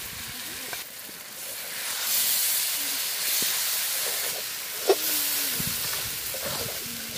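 Curry base of potatoes and onions sizzling and hissing in a hot metal wok as liquid masala is poured in and stirred. The sizzle swells about two seconds in, and there is a single sharp clink of the metal spatula on the wok about five seconds in.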